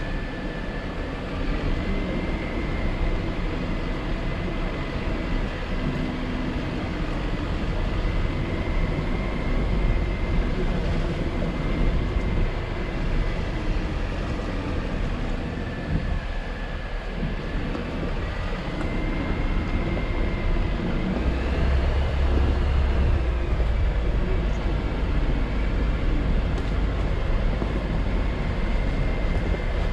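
Jeep Wrangler JL driving slowly over a rough dirt trail: the engine runs steadily under light throttle, with the rumble of tyres over the uneven ground. The low rumble gets heavier about two-thirds of the way through.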